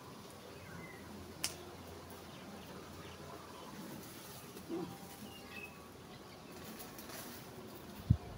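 Faint outdoor garden ambience with scattered bird chirps, a sharp click about a second and a half in, and a short low thump near the end.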